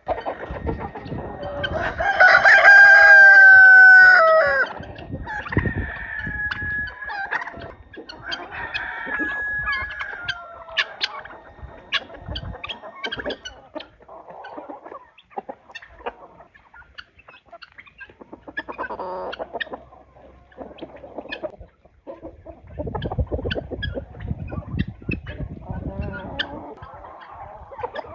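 A flock of chickens: a rooster crows loudly about two seconds in, followed by shorter calls and clucking. Through the rest, many short, sharp taps of beaks pecking at the ground mix with scattered clucks.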